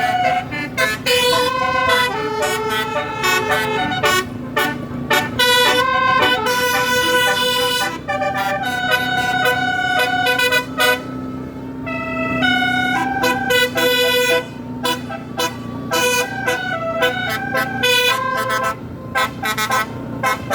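Bus telolet horns, multi-trumpet air horns playing a fast tune of short notes that jump from pitch to pitch, over a steady low drone.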